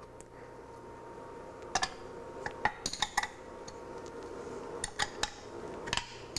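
Box wrench clinking on a small-block Chevy's intake manifold bolts as they are tightened a little at a time in a center-out pattern: a scatter of sharp metallic clinks, several in quick succession about two to three seconds in.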